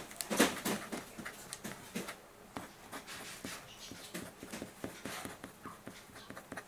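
Short, irregular, scratchy strokes of colouring on a paper drawing sheet, a few a second, the loudest cluster just under half a second in.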